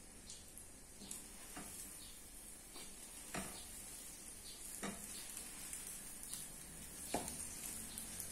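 Faint sizzle of breakfast food frying in nonstick frying pans, with a spatula tapping and scraping against a pan several times; the sharpest tap comes about seven seconds in.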